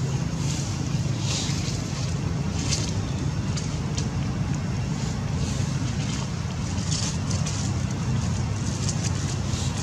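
Steady low outdoor rumble, with faint soft ticks and rustles scattered through it.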